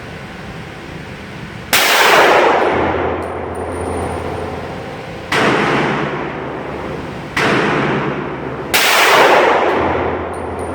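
Four pistol shots from a Glock 32 Gen 4 in .357 SIG, fired at uneven intervals, each followed by a long echoing tail.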